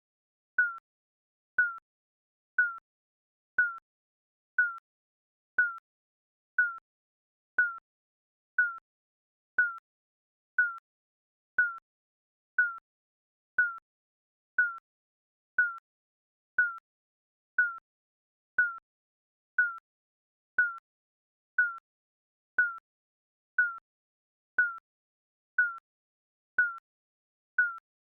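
Digital countdown timer beep, a short high blip repeated once a second, each dipping slightly in pitch and dying away quickly.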